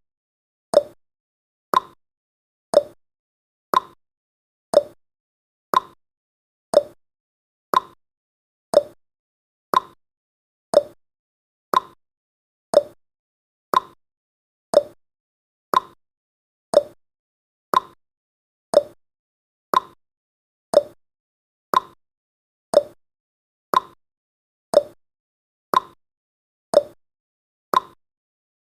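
Clock-tick sound effect of a countdown timer, one tick a second, alternating between a higher and a lower tick like a tick-tock.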